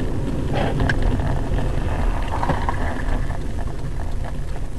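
Steady low rumble of a vehicle in motion, with a few faint clicks.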